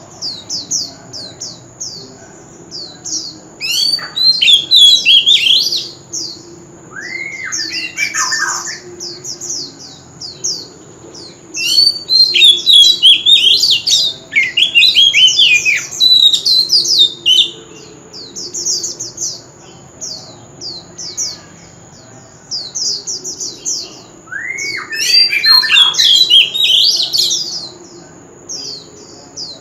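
Male oriental magpie-robin singing continuously: fast runs of short, high whistled notes broken by louder, richer warbled phrases three times. A thin steady high tone runs underneath.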